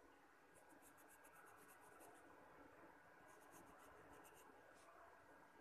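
Faint pencil scratching on paper: two runs of quick short sketching strokes.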